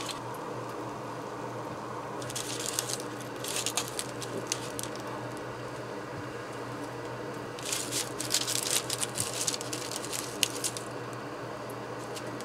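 Roasted onion halves being lifted off a parchment-lined baking tray: crinkly rustling and soft handling noises in three spells, about two, four and eight seconds in, over a steady low hum.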